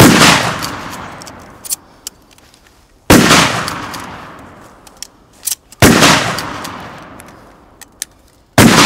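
Pump-action shotgun fired four times, about one shot every three seconds, each blast trailing off in a long echo over about two seconds. Short, fainter clicks come in between the shots.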